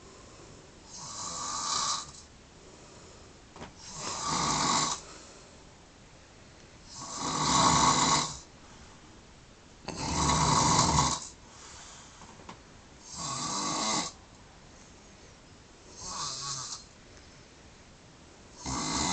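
A sleeping man snoring in a steady rhythm, one snore about every three seconds, seven in all.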